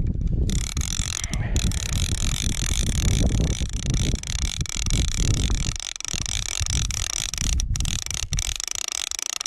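Fishing reel cranked steadily, its gears whirring, as a bottom line is wound in to check the bait, with a low rumble over roughly the first six seconds.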